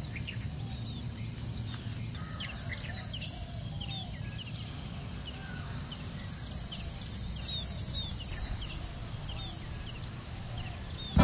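Garden ambience of insects droning steadily at a high pitch, louder from about halfway, with many short bird chirps scattered throughout over a low background rumble.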